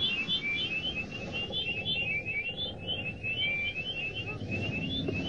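Cartoon sound effect of little birds twittering in rapid, unbroken chirps over a low steady rumble: the gag sound of a character knocked dazed, birds circling his head.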